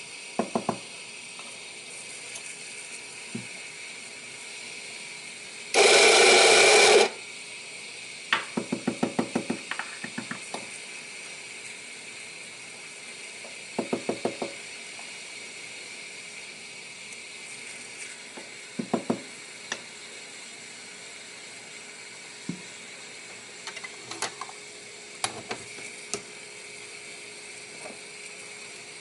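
Preparing a shot at a La Pavoni lever espresso machine. About six seconds in there is one loud noise lasting about a second. After it come short runs of rapid clicking, several a second, and a few single metal taps as the portafilter is handled and locked into the group head, over a steady faint hiss.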